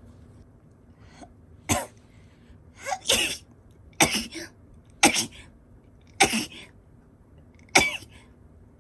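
Toy poodle sneezing six times in a row, about a second apart, from hay fever.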